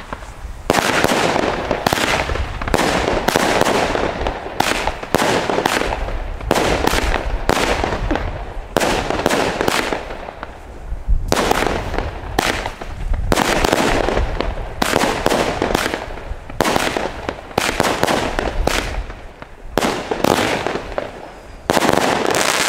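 Argento Blutmond firework battery firing: a rapid series of shots and bursts, about one or two a second.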